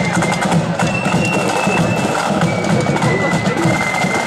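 Marching flute band playing a march on parade: flutes carry a melody of held high notes that step in pitch every second or so, over rapid side-drum strokes and a bass drum.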